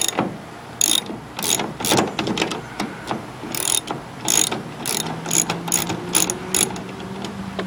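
Ratchet wrench clicking in repeated runs of quick clicks as a 5/16-inch bolt holding a Ford truck's tail light is backed out.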